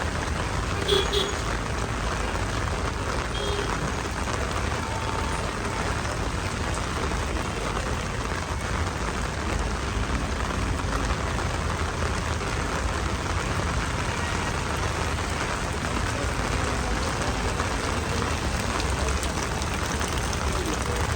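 Heavy rain falling steadily, with a low steady rumble underneath and a brief sharp sound about a second in.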